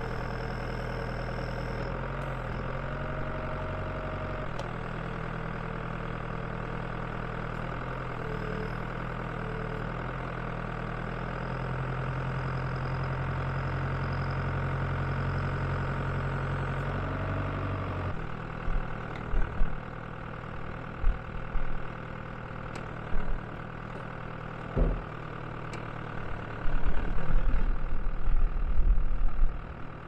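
New Holland L85 tractor's diesel engine running steadily while the front loader's hydraulics lift the bucket. The engine note rises and gets louder from about 12 s, then drops back near 18 s. From then on, irregular gusts of wind buffet the microphone in loud low rumbles.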